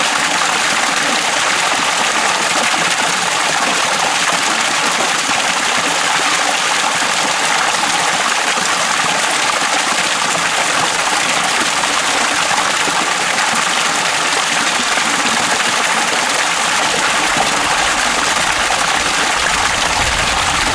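A strong jet of water gushing from an outlet in a stone wall and splashing onto the rocks below: a steady, loud rush of water.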